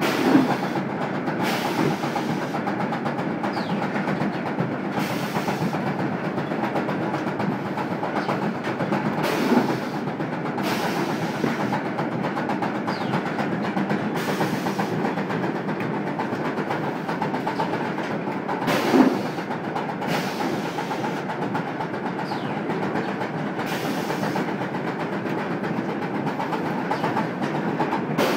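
Automatic strapping machine and powered roller conveyors running with a steady mechanical clatter, broken by a louder clunk about every nine to ten seconds, the sharpest about two thirds of the way through, as the machine straps a bundle of flat corrugated boxes.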